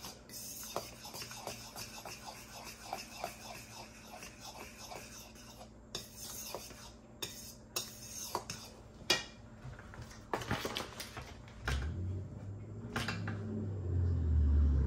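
A fork whisking dry flour mixture in a mixing bowl, tapping and scraping against the bowl's side about three times a second. Near the end a louder low rumble of handling noise comes in.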